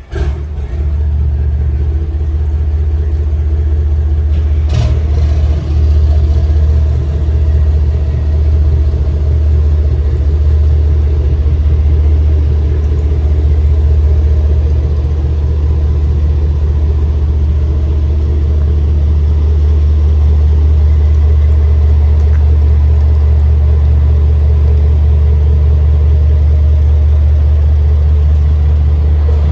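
The engines of a 50-foot Ferretti motor yacht start up and settle into a steady, deep idle. A short sharp knock comes about five seconds in.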